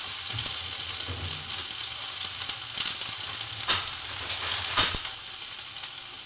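Sliced onions sizzling in hot oil in a kadhai over a high gas flame, a steady frying hiss. Two sharp clicks stand out near the middle, a little over a second apart.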